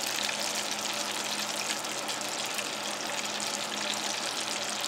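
Hot oil sizzling and crackling steadily in a pot as a breaded potato boxty deep-fries, with a faint steady low hum underneath.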